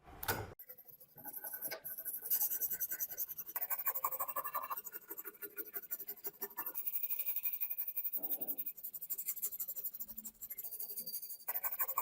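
Fast, rhythmic hand scraping: many quick back-and-forth strokes over a hard surface, of the kind made by scrubbing or sanding, with a short thump at the start.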